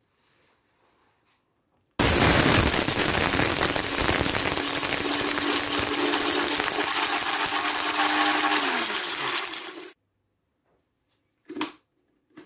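Compact smoothie blender running with a load of bang snaps in its cup: a loud, dense crackle of popping caps over the motor's whine, which falls in pitch as the motor slows, then cuts off suddenly. One short knock follows about a second and a half later.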